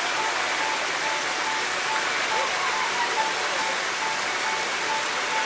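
Waterfall cascade rushing, a steady loud wash of falling water, with background music: a short note repeating in a light, even pulse.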